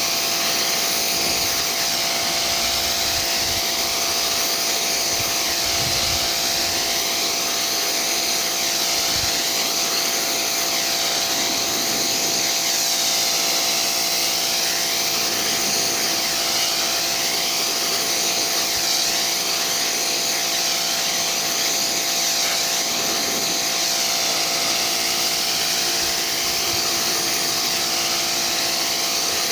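Vacuum cleaner motor running steadily while carpet-covered speaker cabinets are cleaned, its airy hiss shifting in pitch as the nozzle moves over the surface.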